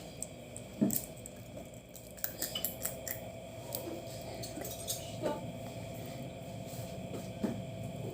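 Quiet eating at the table: scattered soft clicks and taps of crab shell and dishes, with a few squishy bites, over a faint steady hum.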